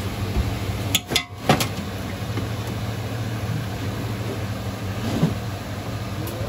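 A steady low mechanical hum, like an engine idling, with a few sharp clicks about a second in and another short knock a little after five seconds.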